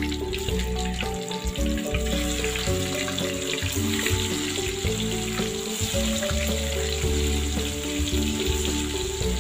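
Pieces of tofu frying in hot oil in a wok, a steady sizzle as more pieces are dropped in. Background music with a stepping melody plays underneath.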